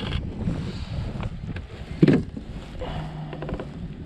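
Wind buffeting the microphone and water around a kayak, with one sharp thump about two seconds in and a quick run of small clicks a little later.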